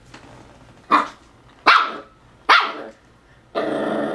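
Wheaten terrier puppy giving three short, sharp, high barks about a second apart at an empty plastic water bottle, then a longer, rougher sound near the end.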